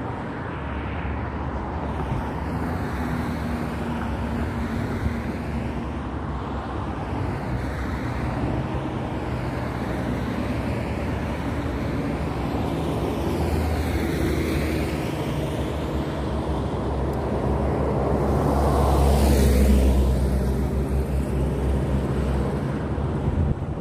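Road traffic going by on the adjacent road, a steady rush of tyres and engines, with one vehicle swelling past loudest near the end.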